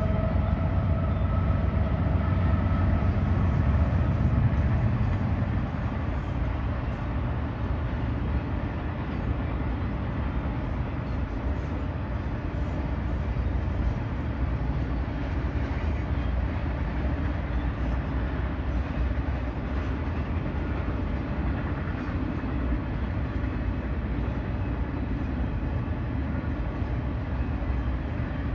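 Freight train rolling past: a steady pitched tone from the head end fades out within the first five seconds, then the cars keep rumbling and clattering by at an even level.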